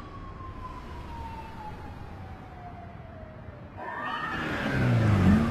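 A single tone slowly sliding down in pitch. Then, near the four-second mark, several police car sirens start wailing together and quickly grow loud, over the rumble of car engines pulling up.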